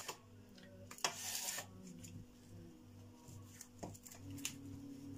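A hand rubbing and smoothing plastic cling film flat on a marble countertop: a soft rubbing rustle, with a louder swish about a second in.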